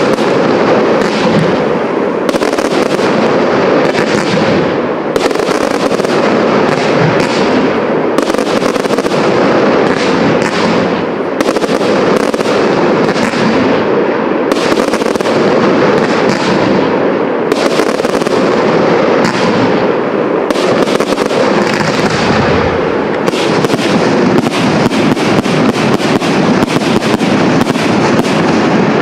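A professional aerial fireworks display: a dense, unbroken run of shell bursts and launches, many bangs and crackles a second, loud throughout.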